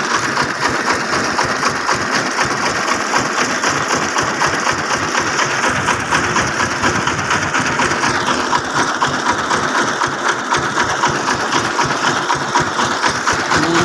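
Homemade farm truck's engine running steadily with a rapid, even clatter.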